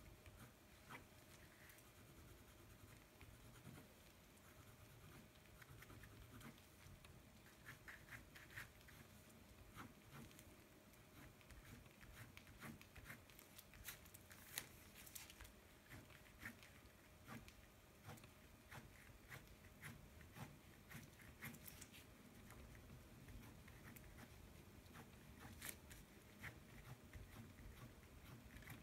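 Faint fingertip rubbing on paper, blending colour into a drawing, with scattered soft scratchy strokes and small clicks.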